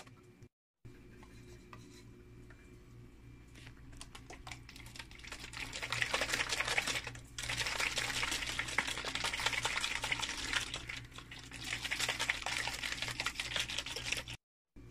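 Small lidded plastic container of water and sieved egg yolk shaken hard by hand, the liquid sloshing and the container rattling quickly. It builds up about four seconds in and goes on in spurts with brief pauses, breaking the yolk into fine particles.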